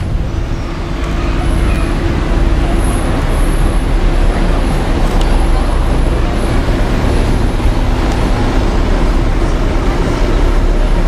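Street traffic noise: a steady low rumble with the steady hum of an engine idling close by.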